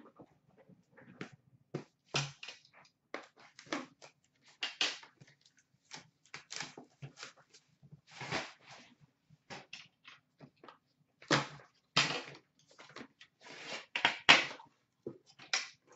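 A hockey card box being handled and opened: irregular scrapes, rustles and knocks as the metal tin is slid out of its cardboard box and set down on a glass counter, the loudest knocks in the second half.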